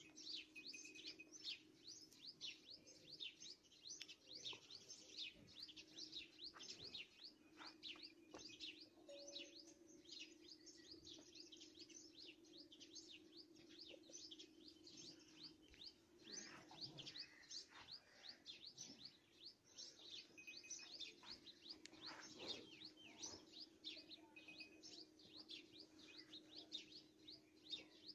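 Faint, continuous chirping of many small birds, several calls a second, over a low steady hum.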